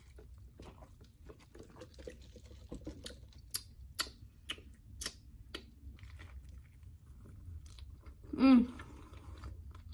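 A person chewing food with wet mouth clicks and smacks, the sharpest ones clustered between about three and six seconds in. A short pitched vocal sound comes about eight and a half seconds in.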